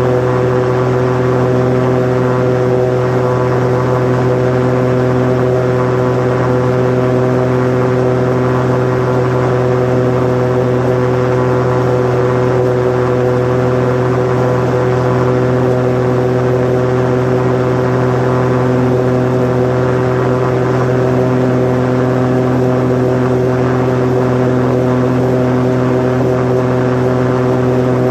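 Osprey 2 amphibious seaplane's piston engine and propeller in flight, heard from inside the cockpit: a loud, steady drone with an unchanging pitch.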